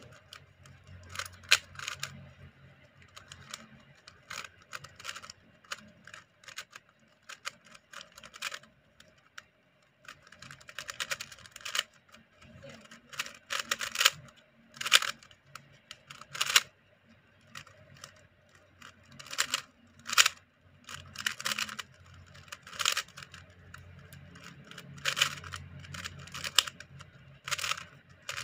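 Gan 356M speedcube being turned: irregular runs of quick plastic clicks as its layers rotate.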